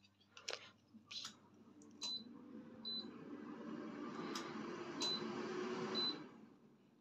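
Digital air fryer's touch-control panel beeping as its buttons are pressed to set the temperature and time: four short high beeps with a few soft clicks, over a steady low hum. A rushing noise swells between about two and six seconds in and then fades.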